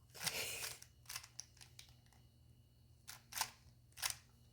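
3x3 speed cube being turned by hand: a short rattling flurry of turns near the start, then separate sharp clicks of single layer turns at irregular intervals.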